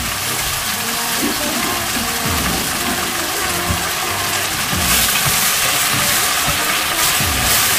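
Chicken pieces sizzling in a hot stainless steel pot, a dense steady hiss that grows louder for moments in the second half as the pieces are stirred with a wooden spoon.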